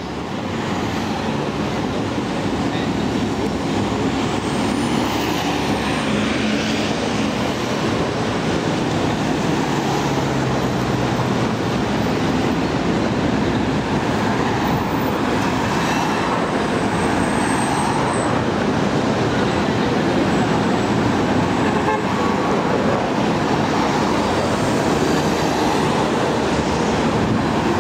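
Steady city street traffic: taxis and cars passing close by on a busy avenue, a continuous hum of engines and tyres.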